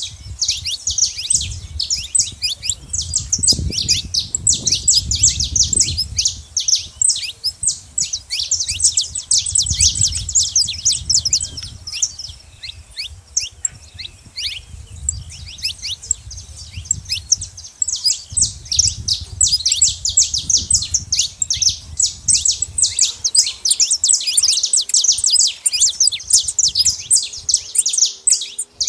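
Saffron finches chirping and singing, a dense stream of quick high notes that thins out for a few seconds around the middle.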